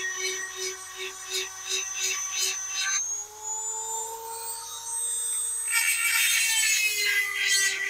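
EzzDoo handheld electric chainsaw sharpener whining at high speed as its grinding stone rasps against a chain tooth in short repeated strokes. About three seconds in, the stone comes off the chain and the motor's whine rises in pitch as it spins free. It drops again as the stone goes onto the next tooth and grinding resumes.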